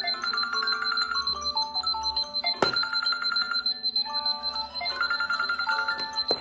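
Mobile phone ringtone: a short electronic melody of stepping notes, repeating phrase after phrase, with a sharp click about two and a half seconds in.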